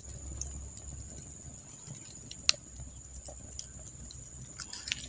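Wood campfire crackling: scattered small sharp clicks, one louder about two and a half seconds in and a few more near the end, over a faint steady high-pitched hum.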